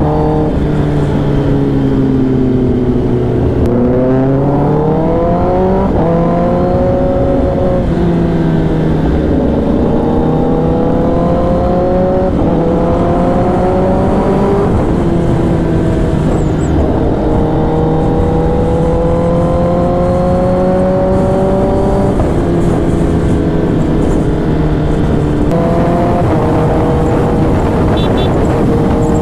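Kawasaki ZX-10R inline-four sport bike with a loud aftermarket exhaust, heard riding at speed. The engine note climbs under throttle and drops back several times, with wind rush underneath.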